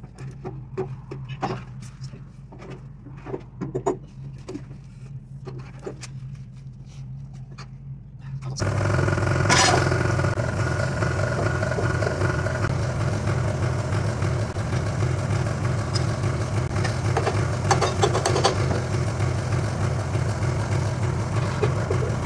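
Scattered short knocks and clinks over a low steady engine hum. About eight and a half seconds in, the sound jumps suddenly to a louder engine idling steadily close by.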